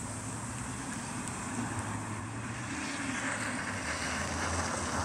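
Wind noise on the microphone over the faint, steady hum of an approaching three-wheeled electric trike driven by hub motors, growing slowly louder as it nears. The trike makes very little sound of its own.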